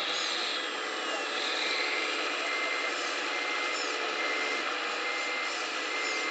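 Wedico CAT 345D model excavator's hydraulic pump and valves running with a steady whine as the arm works the dirt. A high tone slides down about a second in. From about two and a half seconds in, a short high beep repeats a little more than once a second.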